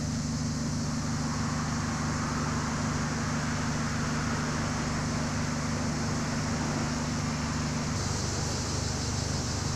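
Steady street noise: a low mechanical hum under an even hiss, changing character about eight seconds in.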